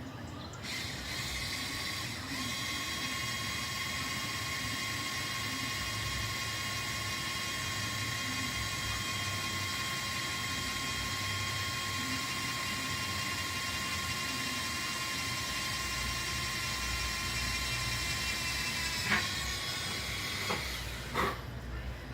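Electric drill running steadily with a high whine as a dry, unoiled bit bores a hole through the car's sheet-metal fender. The whine drops and stops about 19 seconds in, followed by two short blips of the drill near the end.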